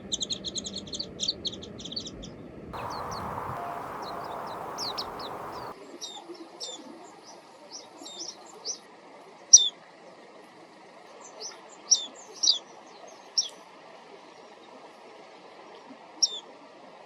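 Japanese white-eyes calling: a quick run of high twittering chirps at first, then, after a few seconds of steady hiss, scattered single thin high call notes every second or two.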